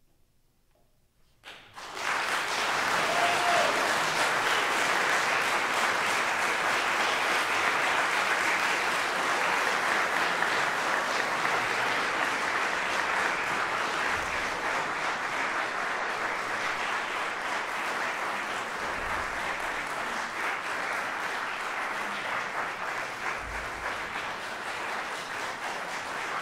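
Audience applauding: after a second or so of near silence, the clapping breaks out at once and goes on steadily, easing off slightly toward the end.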